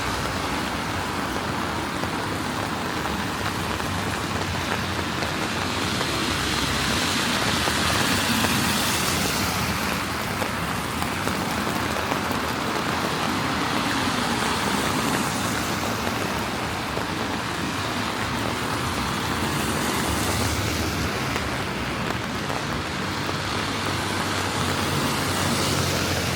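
Steady rain on a wet city street, with cars passing several times, each one swelling up and fading away as its tyres hiss on the wet road.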